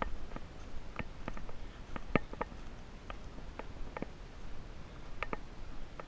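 Footsteps of a person walking: a scattering of short, uneven crunches and clicks over a low steady background.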